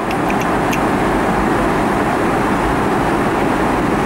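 Steady cabin noise of a Boeing 777-300ER in flight: an even rush of airflow and engine rumble, with a few faint ticks in the first second.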